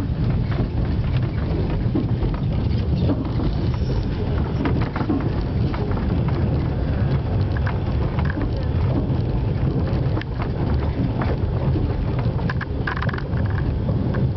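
Running noise heard inside a moving passenger train carriage: a steady low rumble of the wheels on the rails, with scattered clicks and rattles throughout.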